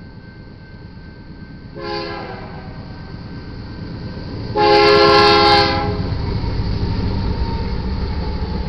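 Air horn of BNSF 5099, a GE Dash 9-44CW diesel locomotive, sounding for a grade crossing: a short blast about two seconds in, then a louder, longer blast in the middle. After that the low rumble of the approaching locomotive and train grows as it reaches the crossing near the end.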